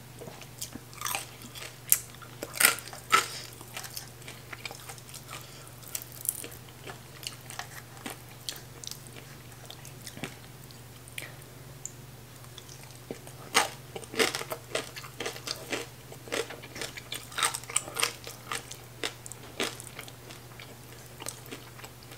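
Close-up mouth sounds of a person eating with her hands: chewing and crunching on fried sour fermented fish, with wet clicks and smacks coming in clusters, and a steady low hum underneath.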